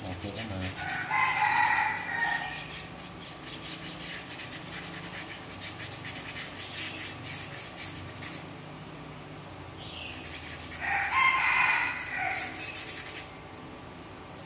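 A rooster crows twice, about a second in and again around eleven seconds in, each crow about a second and a half long. Under it runs the quick, repeated scratch of a small paintbrush scrubbing paint onto corrugated cardboard.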